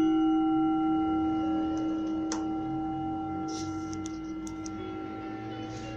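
A singing bowl struck once, ringing out with a steady low tone and higher overtones that slowly fade. It is struck to mark the start of the meditation. A few faint clicks sound over it.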